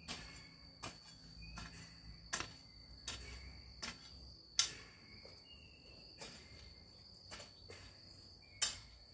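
Garden hoe chopping into dry, loose soil in repeated strokes: about a dozen sharp strikes, a little under one a second. A steady high-pitched whine runs behind them.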